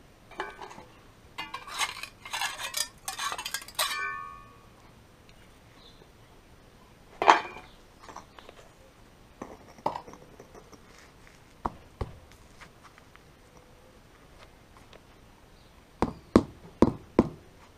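Concrete paving blocks clinking and scraping against each other as they are shifted apart by hand, with a single loud knock about seven seconds in. Near the end a rubber mallet taps a paver down four times.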